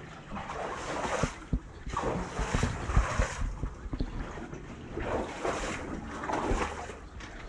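Sloshing, squelching steps through wet mud and shallow water, an irregular swish about every second with low thumps, mixed with waterproof clothing rubbing near the microphone.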